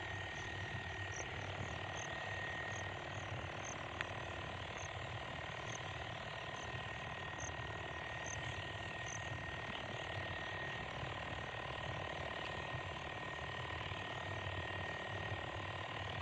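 Knapsack sprayer spraying: a steady hiss with a steady high whine running through it.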